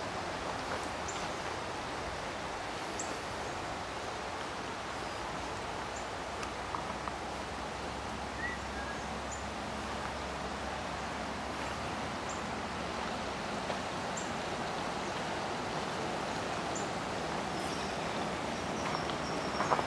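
Steady outdoor rushing background noise, with scattered faint short high chirps and a sharp click near the end.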